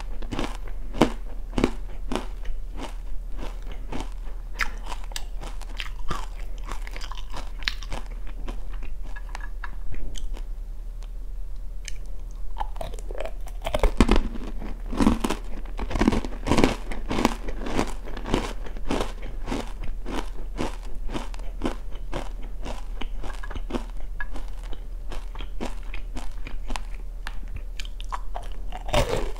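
Close-up chewing of oranda, a Korean snack of puffed bits stuck together with hardened syrup: a rapid run of crisp crunches. The crunches thin out briefly about ten seconds in, then come thick again as a new piece is bitten into.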